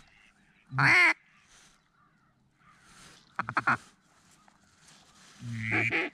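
Hen mallard quacks blown on a duck call: one loud drawn-out quack about a second in, a quick run of about four short quacks midway, and a longer calling sequence starting near the end.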